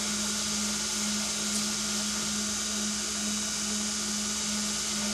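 Belt grinder running with a steady motor hum, its abrasive belt grinding the end of a knife handle with a continuous hiss.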